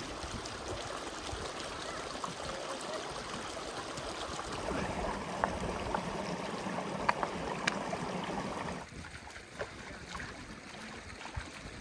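Shallow mountain stream running over stones, a steady rush of water, with a few sharp knocks in the middle. The water sound drops quieter about nine seconds in.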